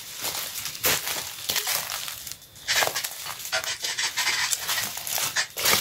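Footsteps crunching irregularly on dry leaves and rubble.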